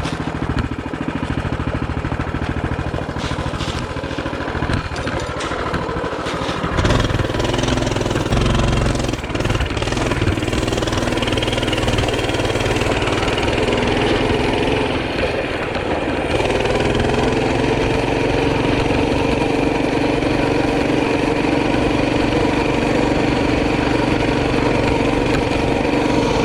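Small vehicle engine running, picking up about seven seconds in and then holding a steady, even note.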